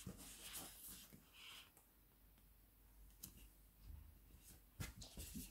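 Near silence with faint rustling and a few soft clicks as sheets of matte metallic cardstock are handled and shifted over one another.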